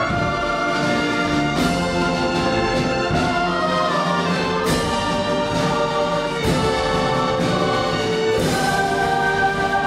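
Mixed choir singing with a small orchestra of violins, tuba and trombone, in sustained chords that change every second or two.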